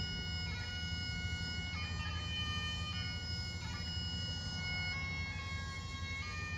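Bagpipes playing a slow tune, long held notes that step from one pitch to the next every second or so, over the steady drone.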